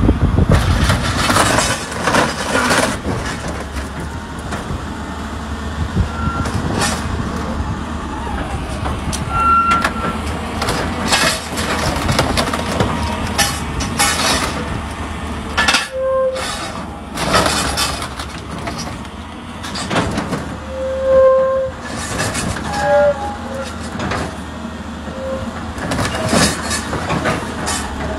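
Excavator's orange-peel grapple tearing and crushing a scrapped truck cab: repeated crunches and bangs of metal with a few short squeals, over the machine's steady engine hum.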